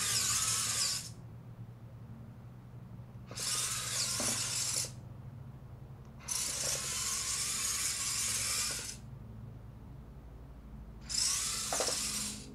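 Small electric gear motors of a 3D-printed robot car whirring in four short runs of one to three seconds, starting and stopping as the car is driven back and turned by remote control.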